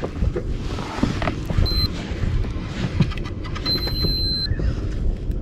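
Wind rumbling on the microphone and water moving against an inflatable boat, with scattered knocks and clicks. A short high steady beep sounds just under two seconds in, and a longer one of nearly a second about four seconds in.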